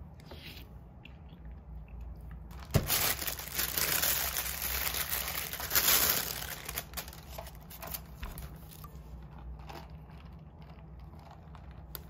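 A sharp knock, then a clear plastic bag crinkling loudly for a few seconds as a pastry is taken out of it, fading into quieter handling sounds.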